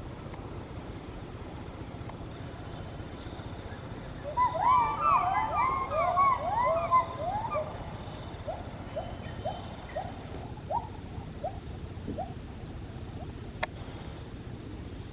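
Primate whooping calls, which the uploader tags as ape and monkey sounds. A dense, loud burst of overlapping rising-and-falling whoops lasts about three seconds, then a trail of single whoops about twice a second fades out.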